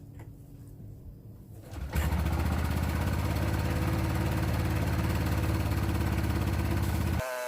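Kawasaki ATV engine running steadily after catching on the first pull of the recoil starter, fresh gas in it after months of sitting. It is faint at first, gets much louder about two seconds in, and drops back near the end.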